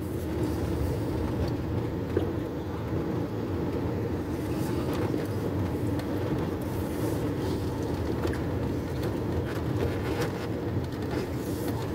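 Car driving along slowly, with a steady rumble of engine and tyre noise heard from inside the cabin.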